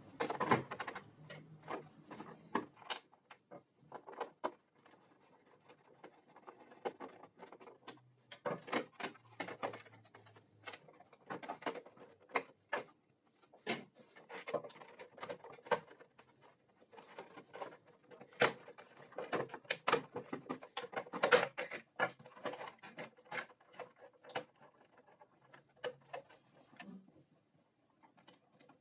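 Irregular clicks, knocks and light clatter of parts and tools being handled by hand on a workbench, with short rustles between them; the loudest knocks come in the middle.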